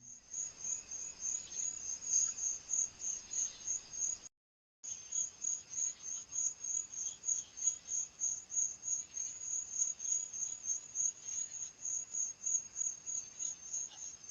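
Insects chirping steadily outdoors, a high-pitched pulse about three times a second over faint hiss, heard through a doorbell camera's microphone. The sound drops out completely for half a second about four seconds in.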